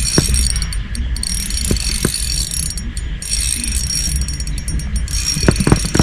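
Spinning reel ratcheting and clicking as a chub is reeled in, over a steady rushing background with wind rumble on the microphone; a cluster of clicks comes near the end.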